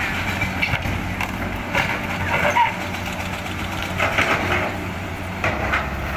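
Tracked hydraulic excavator's diesel engine running steadily while its bucket digs and scrapes through rocky soil, with several bouts of stones and dirt crunching and clattering.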